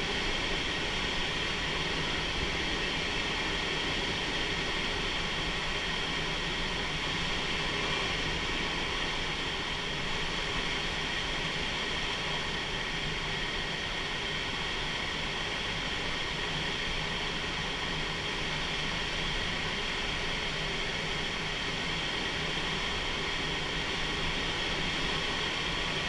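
Steady rush of airflow past a glider in flight, heard from inside the cockpit, even throughout with no changes.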